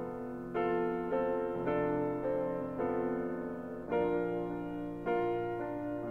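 Slow piano music: notes or chords struck about every half second, each left ringing as it fades.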